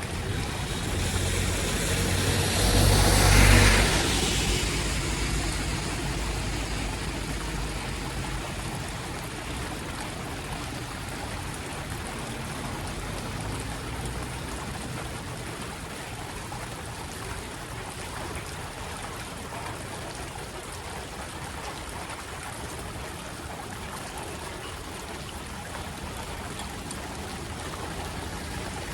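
Floodwater running steadily over a street in the rain. A vehicle passes through the water in the first few seconds, a deep rumble and spray that is loudest about three seconds in, then fades.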